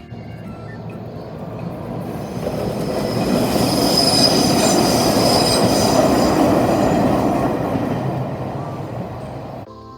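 A Daiyuzan Line electric train passes close by, its rumble building, peaking in the middle and fading away, with a high wheel squeal at its loudest. The sound cuts off suddenly just before the end.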